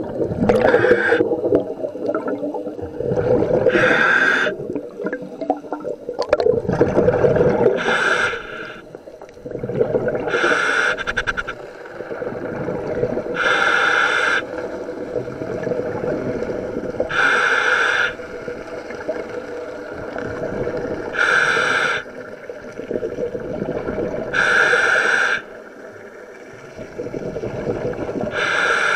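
A scuba diver breathing through a regulator underwater: regular breaths about every three and a half seconds, each a hiss of air and bubbles lasting about a second. A steady low rumble and gurgling run underneath.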